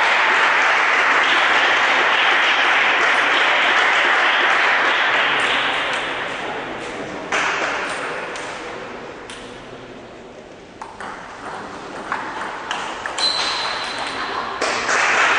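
Celluloid table tennis ball clicking off bats and table in a short rally, about half a dozen irregular hits. Before it, a loud, even rush of hall crowd noise fades out over several seconds, and it comes back near the end as the rally stops.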